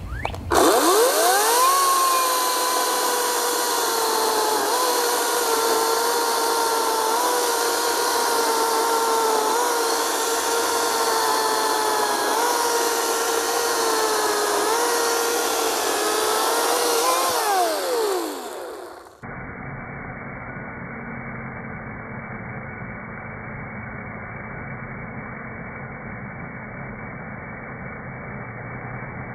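Ryobi 40V 14-inch brushless electric chainsaw spinning up and cutting through a red oak log: a steady motor-and-chain whine that dips slightly in pitch as the chain bites, then winds down about two-thirds of the way in. After that the saw runs on in a duller, muffled sound that stays steady.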